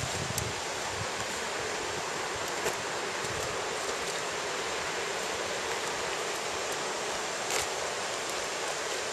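Stream water rushing steadily, with a few faint brief ticks over it.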